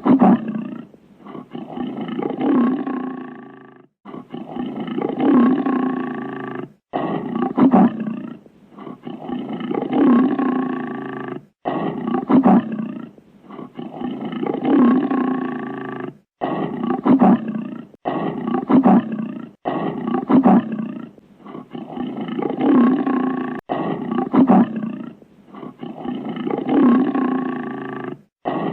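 A lion growling and roaring over and over, in loud bouts of a few seconds each with short breaks and shorter grunts between.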